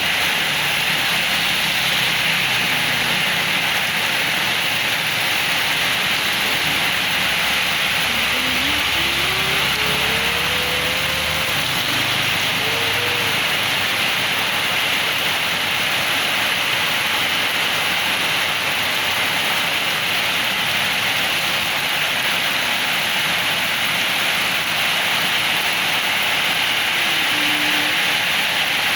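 Heavy rain with strong wind, a steady loud hiss throughout. About a third of the way in, a low rumble with a short rising, wavering tone comes and goes.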